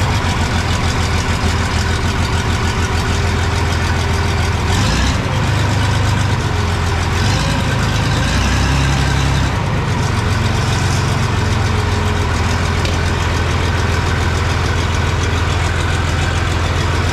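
John Deere 2840 tractor's diesel engine idling steadily just after a cold start, warming up, with the combine's engine also running.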